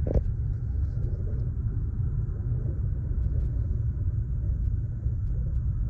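Steady low rumble of a car driving along a snow-covered road, heard from inside the cabin: tyre and engine noise.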